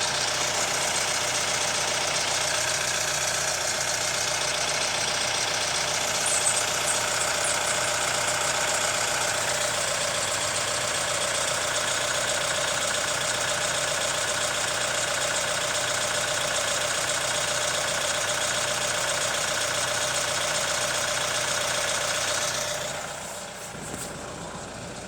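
Hyundai ix35 2.0 CRDi diesel engine idling warm with a knock, which the owner puts down to either the hydraulic lifters or the timing chain tensioner. About 23 seconds in, the sound drops and the low engine sound fades.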